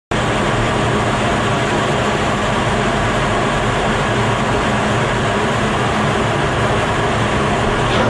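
Steady in-flight cockpit noise of an F-15C Eagle fighter jet, a loud, even rush of engine and airflow noise that starts abruptly.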